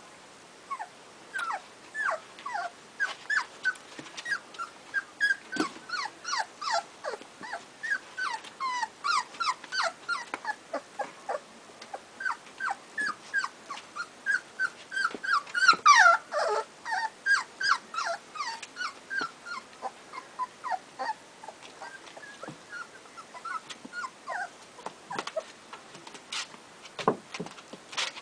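Puppies whimpering: a steady stream of short, high cries that mostly fall in pitch, several a second, loudest about halfway through.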